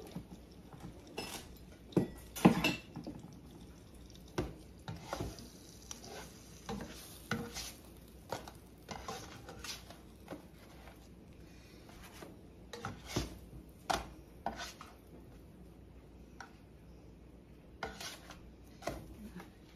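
Cooking utensils knocking and scraping against a skillet in scattered, irregular clicks and clatters, loudest about two seconds in, as grilled cheese sandwiches are turned and lifted out of the pan.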